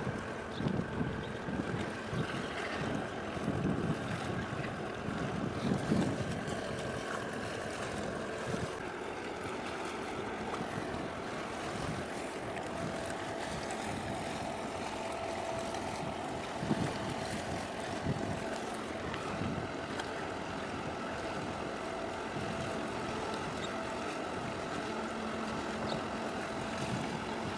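Wind buffeting the microphone over open water, with the steady hum of a large container ship passing close by. The ship's hum grows plainer from about halfway through.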